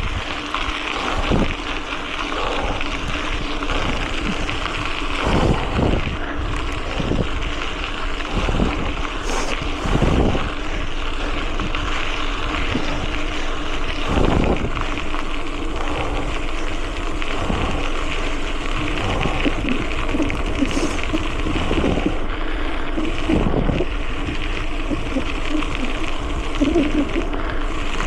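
Mountain bike riding noise: steady wind rush on the action camera's microphone and tyre rumble, with occasional knocks as the bike goes over bumps.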